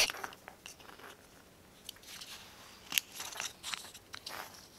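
Faint handling clicks and taps of a plastic servo being fitted into a small laser-cut plywood servo mount bracket, with the sharpest click about three seconds in.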